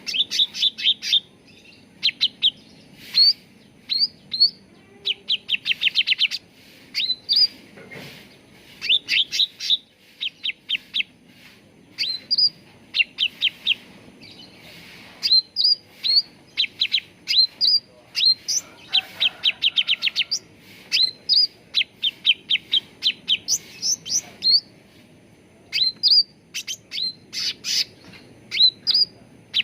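Cucak ranting songbird calling: sharp, upslurred chirps repeated in quick runs of several notes, with short pauses between runs.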